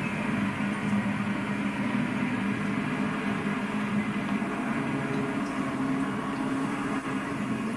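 A steady low rumble with a constant hum and a hiss above it, holding level throughout.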